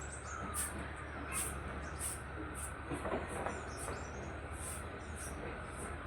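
Outdoor morning ambience: a steady low hum under a faint wash of noise, with a short, very high chirp repeating evenly about once or twice a second.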